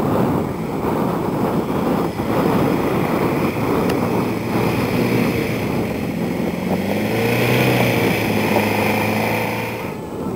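A small vehicle engine running under load over rough ground, its pitch rising and falling from about halfway through, with wind buffeting the microphone.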